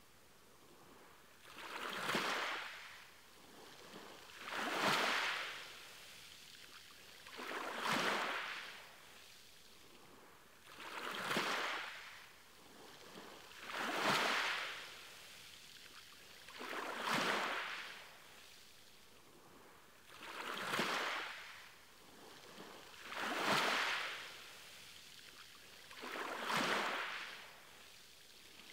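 Ocean waves washing in one after another, each swelling up and falling away, about one every three seconds.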